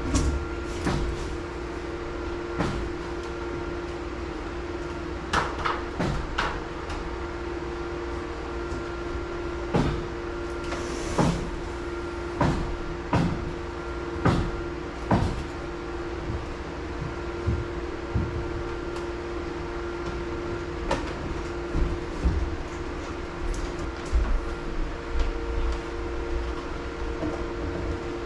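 Electrical cable being handled and fastened overhead along wooden floor joists: irregular knocks, taps and a brief rustle, over a steady hum.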